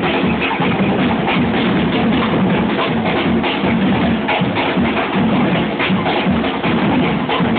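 A percussion group playing a fast, steady rhythm together on large drums, a dense run of strikes with no break.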